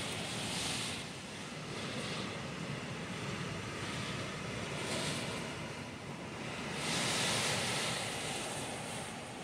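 Strong gusty storm wind blowing through banana plants and garden foliage, swelling and easing in gusts, the strongest about seven seconds in.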